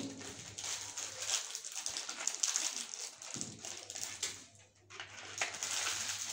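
Plastic biscuit wrappers crinkling and tearing as they are opened by hand: a dense, irregular crackle with a brief lull about five seconds in.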